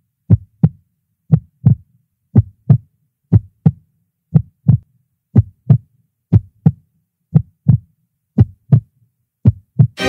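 Heartbeat sound effect: pairs of deep thumps, a lub-dub about once a second, slow and even. Music starts suddenly right at the end.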